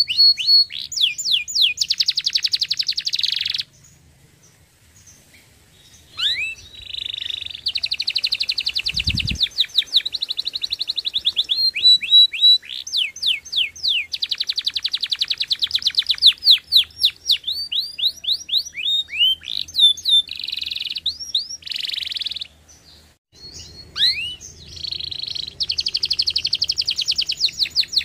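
Domestic canary singing: long fast rolls of rapidly repeated sweeping notes, changing from one rolled phrase to the next. The song breaks off for about two seconds some four seconds in and again briefly later on.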